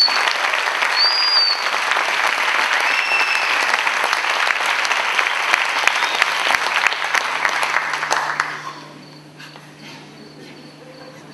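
Audience applauding loudly, with a few short high whistles near the start. The clapping dies away about eight and a half seconds in.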